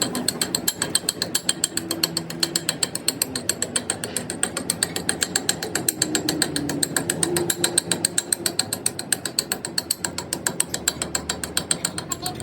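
Rapid, evenly spaced metallic clicking from a machine, about seven clicks a second, steady throughout.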